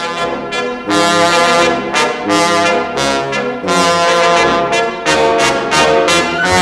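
Brass-led cartoon score, with trombone and trumpets playing a jaunty run of short, separate notes.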